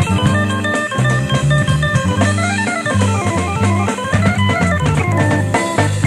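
Jazz-fusion instrumental: a keyboard plays fast runs of notes that climb and fall, over electric bass and a drum kit.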